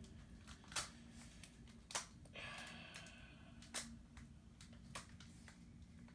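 Trading cards handled and flipped through: several soft, sharp clicks about a second apart, with a brief papery sliding rustle about two and a half seconds in, over a faint steady hum.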